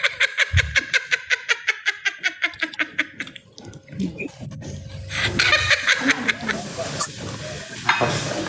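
Hearty laughter: a fast run of ha-ha pulses, about seven a second, sinking in pitch and dying away after about three seconds, then looser, breathy bursts of laughing.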